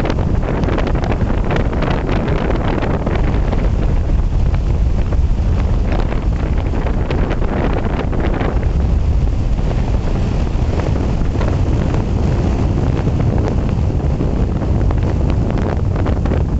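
Fierce mountain wind in a snowstorm buffeting the camera microphone: a loud, continuous low rumble with scattered crackles.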